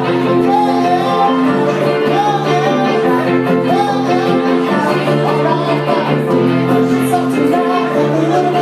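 Live band playing, with a voice singing a wavering melody over held chords.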